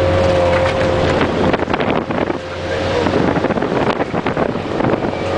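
Vehicle engine running with a steady whine and low hum, which fades for a couple of seconds in the middle and then comes back, with wind buffeting the microphone.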